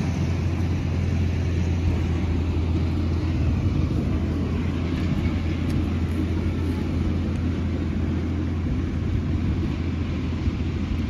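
Steady low rumble of a motor vehicle on the move: engine and road noise without any sudden change.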